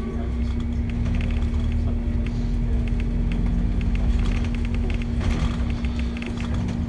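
Double-decker bus in motion, heard from inside on the upper deck: a low engine and road rumble with a steady hum and light rattles of the bodywork.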